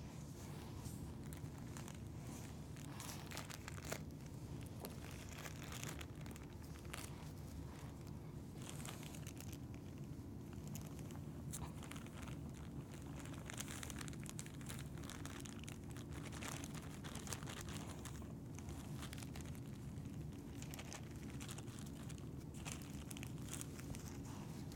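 Faint crinkling and rustling of food packaging with scattered light clicks as dry ingredients are measured out into bowls, over a steady low hum.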